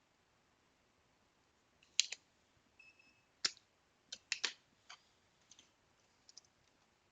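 Sharp clicks and taps of small hand tools being handled during circuit-board repair work: one near two seconds in, then a quick cluster of clicks around four to five seconds in, with fainter ticks after. A short, faint high beep sounds just before three seconds in.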